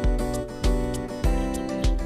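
Background music: acoustic guitar strumming over a steady beat, with a low kick thump about every 0.6 seconds.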